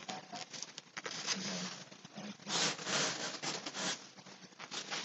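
Rustling and scraping of a cardboard shipping box and the yarn cakes inside as they are handled and lifted out. It comes in short irregular scuffs with small clicks, loudest between about two and a half and four seconds in.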